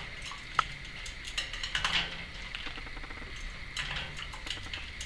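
Timneh African grey parrot splashing about in its water bowl, with scattered light clinks and splashes and a sharper click about half a second in.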